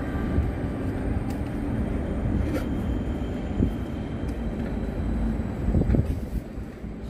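Steady low rumble of city vehicle traffic, with a couple of faint knocks.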